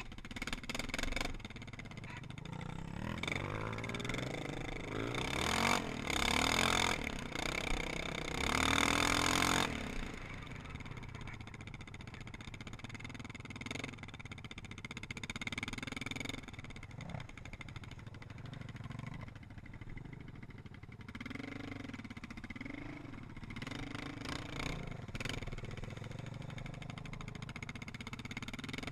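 Sport quad (ATV) engine running under the rider, revving up hard several times between about four and ten seconds in, then settling to a steadier run, with a few short swells of the throttle rising and falling near the end.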